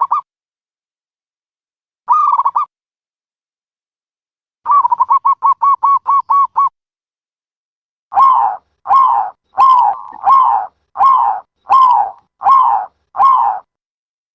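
Dove cooing recorded for use as a trapping lure: a short call at the start and another about two seconds in, then a fast run of about ten short coos, then eight longer coos, each dropping slightly in pitch, spaced under a second apart.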